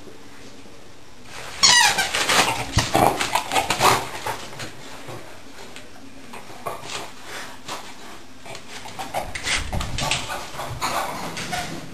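Young beagle barking in play. A run of loud, sharp barks starts suddenly about two seconds in, and quieter ones come near the end.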